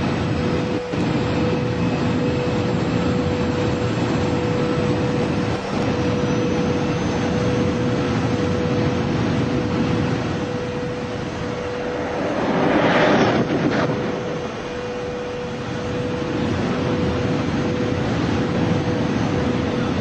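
TGV V150 high-speed test train running at about 570 km/h: a steady rushing roar with a constant mid-pitched whine under it. It swells louder for a couple of seconds about twelve seconds in.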